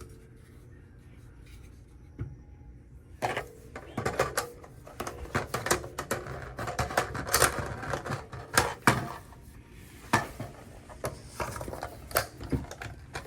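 Clicks and clacks of a suppressed B&T SPR300 Pro rifle being handled, with its folding stock and magazine being worked. They begin about three seconds in and come in an irregular run of sharp knocks.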